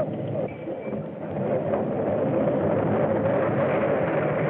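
Steady rumble of a moving vehicle on an old film soundtrack that is muffled above the mid-range. It grows louder about a second in.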